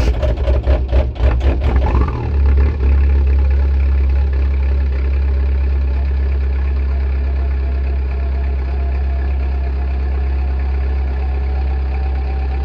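2001 VW Jetta TDI's 1.9-litre ALH four-cylinder turbodiesel just after a cold start: it runs rough and uneven for the first two seconds or so, then settles into a steady diesel idle.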